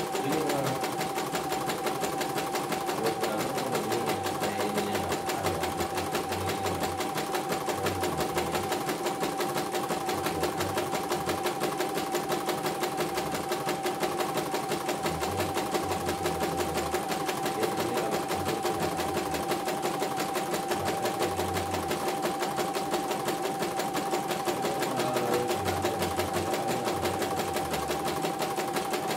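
CNY computerized embroidery machine stitching a design in the hoop: a fast, even run of needle strokes over a steady motor whine. It runs without stalling after being repaired from a total jam.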